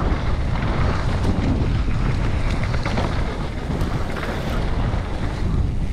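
Wind rushing over the camera microphone on a mountain bike descending a dirt trail, with the rumble of the tyres and scattered small knocks and rattles from the bike.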